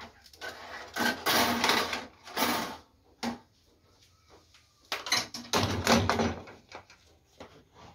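Round aluminium baking pan scraped out over an electric countertop oven's wire rack, then set down with a clatter on a gas stove's metal grates, with single sharp knocks in between.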